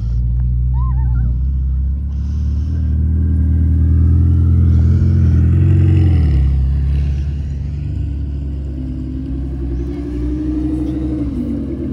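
Ferrari 488 Spider's twin-turbo V8 pulling away slowly across grass, its engine note building for about six seconds and then easing off. A Lamborghini Huracán's V10 follows, with a short rev that rises and falls near the end.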